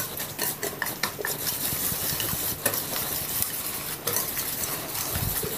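A metal spoon stirring a thick spiced curd masala in a steel bowl, with many quick clicks and scrapes of the spoon against the bowl.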